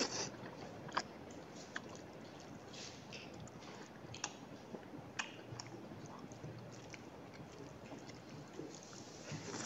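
A person eating soft rice with curry close to the microphone: quiet wet chewing and lip smacks, with a few sharp mouth clicks scattered through.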